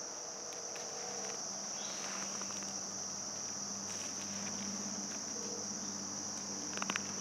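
Steady high-pitched chorus of insects, with a faint low hum under it and a few light clicks near the end.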